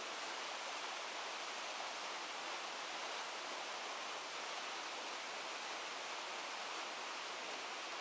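Waterfall's steady rushing hiss, even and unbroken.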